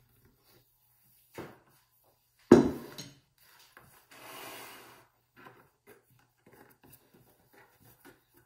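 A marble rolling pin with wooden handles set down on the countertop: a small knock, then a louder knock with a short ring. A brief rub and light taps follow as hands press the pastry dough into the tart tin.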